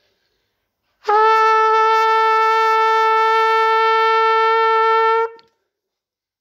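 Trumpet holding one long, steady note for about four seconds in a long-tone warm-up, started without tonguing; it begins about a second in and stops cleanly.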